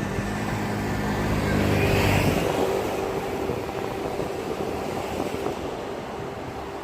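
Hankyu Takarazuka Line train running off past the crossing: a thin steady squeal dies out about a second in and the low rumble fades by about two and a half seconds. After that, steady outdoor vehicle noise.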